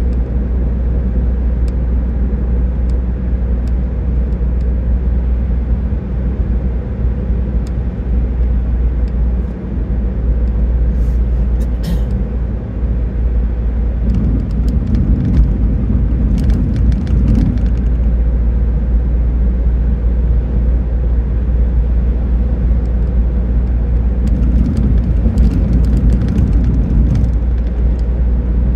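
Car driving at road speed on pavement: a steady low rumble of road and wind noise, swelling slightly twice, with a few faint clicks.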